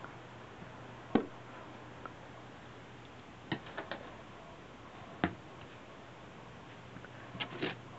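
A cat pouncing and batting about beside a cardboard box, making scattered soft knocks and taps. There is one sharp knock about a second in, three quick taps a little before the middle, another sharp knock past the middle, and a few close together near the end.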